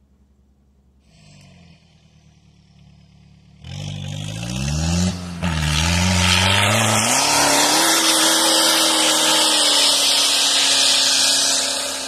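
An SUV's engine revving hard under load as it climbs a snowy slope: it comes in loud about four seconds in, its pitch rising, dipping briefly, then climbing and holding high and steady, with a loud hiss over it.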